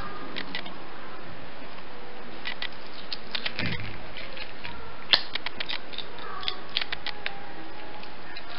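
Small wet clicks and squelches of hands and a knife working over a raw chicken above a basin of water, scattered and irregular, with a sharper click about five seconds in, over a steady hiss.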